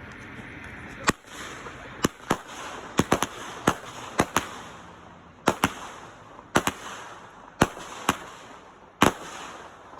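Consumer fireworks going off: about fifteen sharp bangs at irregular intervals, several in quick pairs, over a steady hiss.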